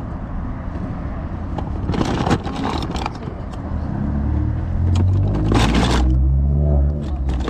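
Hard plastic toy animals and fence pieces clattering and scraping as a hand rummages through a tub of them. From about four seconds in, a motor vehicle's engine runs close by and grows louder, and becomes the loudest sound.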